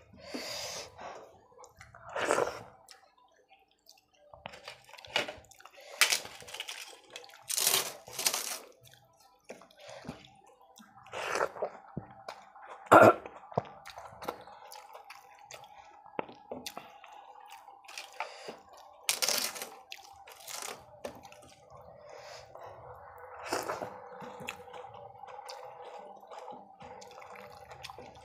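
Close-up eating sounds: fingers mixing and squishing rice with dal on a steel plate, with several sharp, crisp crunches of papad being crushed and chewed.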